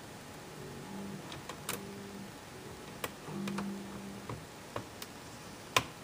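Light plastic clicks and taps from fingertips working a flat cable into its connector on a laptop's palm rest, about half a dozen scattered clicks with the sharpest near the end.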